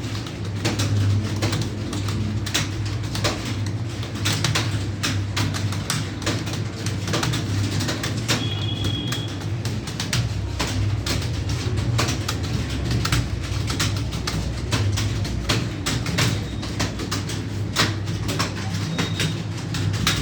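Keyboard keys clicking in an irregular run of sharp taps over a steady low hum, as someone types during a timed typing test.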